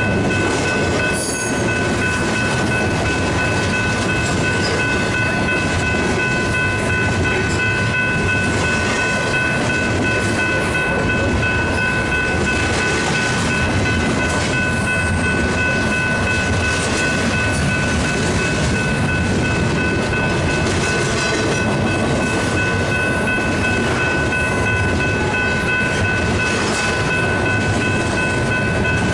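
Double-stack intermodal container well cars of a Union Pacific freight train rolling steadily past, a continuous rumble with wheels clattering over the rails. A steady high ringing tone sits over it throughout.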